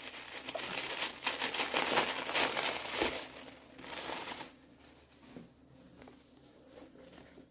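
Tissue paper crinkling and rustling as it is unwrapped from around a book, dying away about four and a half seconds in, with only faint handling sounds after.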